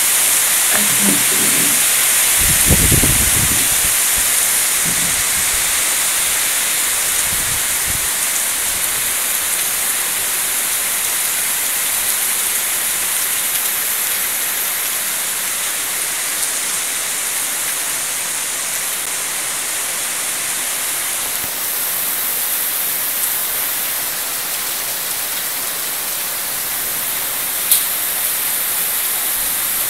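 Torrential cloudburst rain: a dense, steady hiss of downpour. A brief low rumble comes about three seconds in, and a single sharp click near the end.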